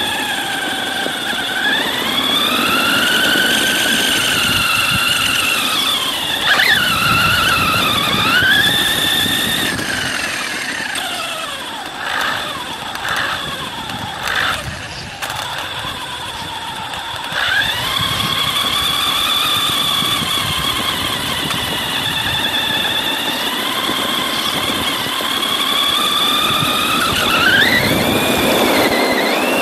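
Electric motor and drivetrain of a 1/10-scale Redcat RC monster truck whining as it drives, the pitch rising and falling with the throttle over a rushing noise. A few brief knocks come about halfway through.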